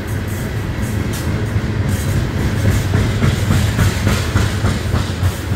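Coal train hopper cars rolling past, a steady low rumble of wheels on rail; from about halfway through the wheels click quickly over rail joints, several clicks a second.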